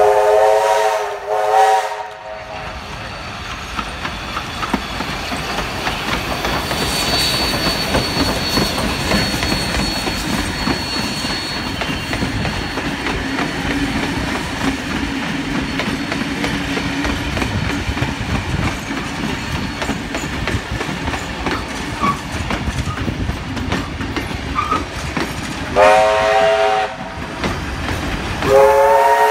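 Steam locomotive 3265 sounding its chime whistle in two short blasts as it approaches, then its passenger carriages rolling past with wheels clattering over the rail joints. Near the end a second steam locomotive's whistle sounds twice, from 3526 at the rear of the train.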